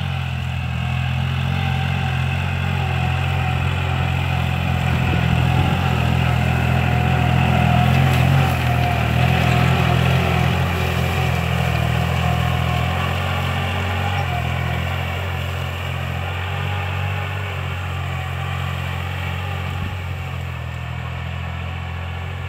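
Kubota L4018 tractor's diesel engine running steadily as it pulls a disc plough through dry soil. It grows louder as the tractor comes close, then slowly fades as it moves away.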